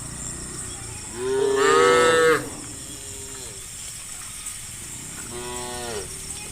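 Cows mooing: one loud drawn-out moo about a second in, then fainter, shorter moos from other animals of the herd.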